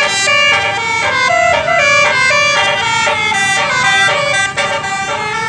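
A bus's basuri 'telolet' musical horn playing a tune: a loud run of held horn notes stepping from pitch to pitch every fraction of a second, several sounding together.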